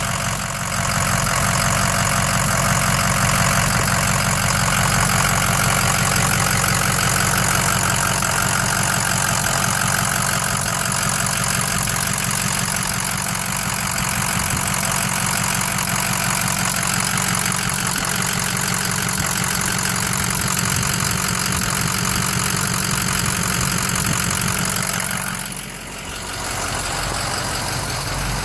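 Ford F-550 work truck's engine idling steadily, heard close up under the open hood. Near the end it briefly dips, then carries on a little quieter.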